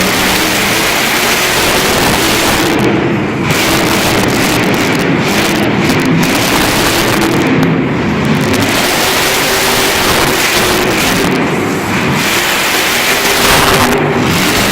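Monster truck engine running loud and hard. Its sound dips briefly several times.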